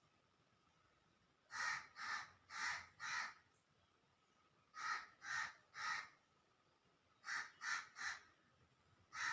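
Crow cawing in three runs of short caws, four then three then three, with a single caw near the end.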